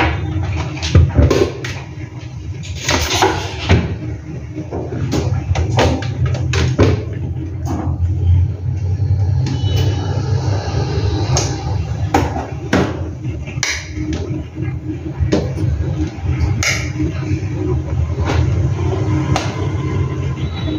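Kitchen handling sounds: irregular knocks and clicks of objects and an appliance being moved and set down on a marble counter, over a steady low hum.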